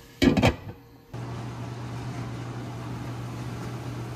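A glass lid set down on a nonstick stock pot with two quick knocks. About a second in, a steady kitchen range-hood fan hum with a low tone takes over.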